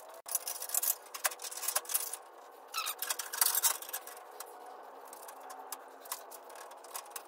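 Irregular clicks and light metal knocks from a steel step-notch plate being fitted and clamped with bar clamps against a truck frame rail, busiest near the start and again around three seconds in.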